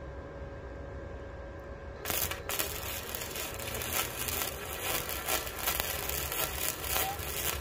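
Flux-core wire-feed welder arc crackling and spitting as a bead is laid on a steel tube frame. It starts suddenly about two seconds in, after a low steady hum, and runs on with an irregular sputter.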